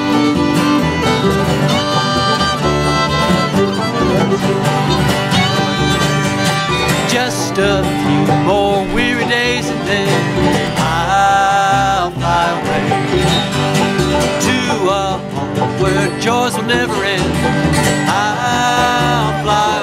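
Live acoustic bluegrass band playing: fiddle, banjo, mandolins, acoustic guitars and upright bass together.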